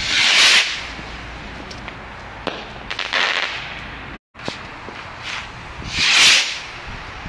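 Fireworks going off: two loud hissing whooshes of about half a second each, one at the start and one about six seconds in, a softer one around three seconds, and several sharp cracks between them. The sound cuts out completely for a moment about four seconds in.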